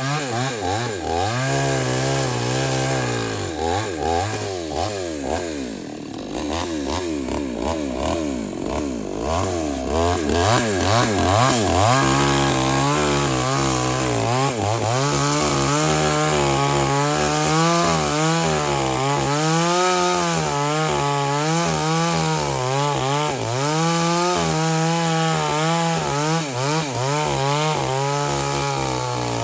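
JCK chainsaw with a 22-inch bar running continuously. Its engine speed sags and bends for several seconds, then picks up about twelve seconds in and wavers as it works.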